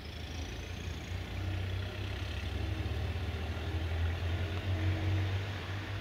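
Low, deep engine rumble that swells to its loudest about four to five seconds in and then eases off, with a faint high whine rising in the first second.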